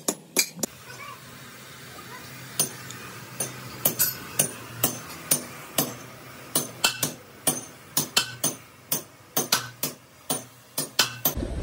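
Repeated hammer blows on metal, sharp ringing strikes about two to three a second, with a pause of about two seconds near the start. At first it is a hammer driving bronze bushings into a cast housing.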